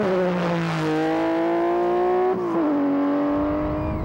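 Rothmans Porsche 911 rally car's air-cooled flat-six accelerating, its note rising, dropping sharply at an upshift about two and a half seconds in, then rising again.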